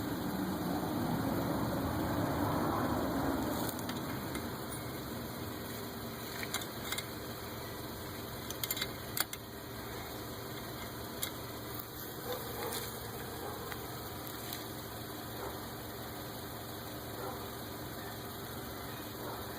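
A steady mechanical hum, with scattered light metallic clicks and taps of hand tools on a turbocharger's parts, clustered about a third of the way in.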